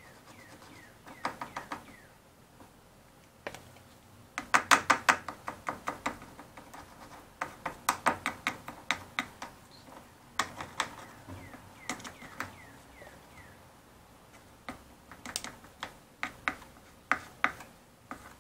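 Wooden stick tapping and scraping against the canoe's wooden gunwale and deck plate as thick silica-filled epoxy is packed into the joint: bursts of quick clicks, several a second, in clusters, loudest about five seconds in.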